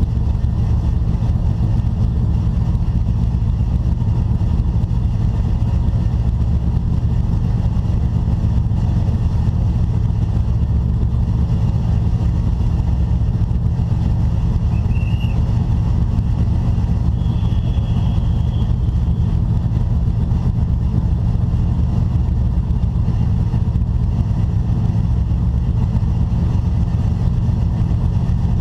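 Racing vehicle's engine and rushing noise heard from an onboard camera, a steady, loud low rumble.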